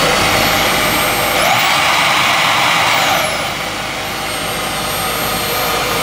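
Roidmi S1S cordless stick vacuum's motor running with a high whine over a rush of air. About a second and a half in its pitch rises as the power level is stepped up, and about three seconds in the pitch falls and it gets a little quieter as the setting is changed again.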